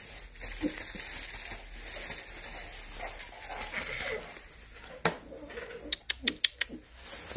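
33-day-old Lycan Shepherd puppies whimpering and scrabbling in shredded-paper bedding. Near the end comes a quick run of about half a dozen sharp clicks.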